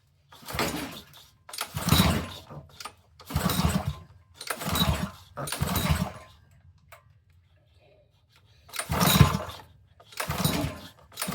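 Honda GC190 pressure washer engine being pull-started by its recoil cord, about eight yanks roughly a second apart with a short pause after the fifth, each one cranking the engine over without it catching and running. It is being fed only a little gas by hand with no fuel tank fitted.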